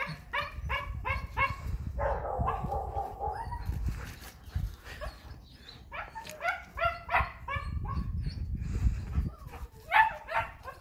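German Shepherd puppies yipping and barking in quick high-pitched runs, about four calls a second, as they play, with one drawn-out cry about two seconds in.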